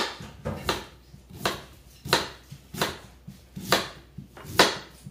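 Kitchen knife chopping on a plastic cutting board: seven sharp, evenly paced knocks, a little under a second apart.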